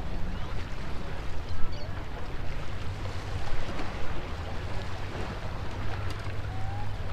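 Steady wind rumbling on the microphone, with waves washing against the granite rocks of a jetty.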